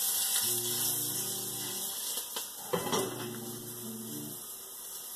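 A steady low hum of held tones, with a few sharp clinks of kitchen utensils or dishes about two to three seconds in.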